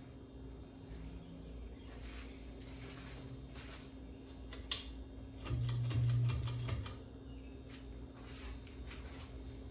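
Ceiling fan pull chain being worked: a sharp click, then a quick rattling run of about eight clicks from the chain and switch, over a steady low hum.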